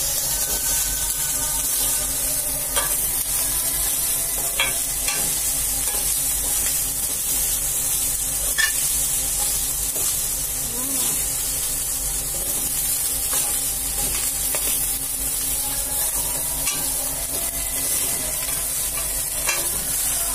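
Sinangag (Filipino fried rice) with egg sizzling steadily in an aluminium pot while it is stirred, with a few sharp clicks from the stirring or the rice popping. The rice is already scorching on the bottom.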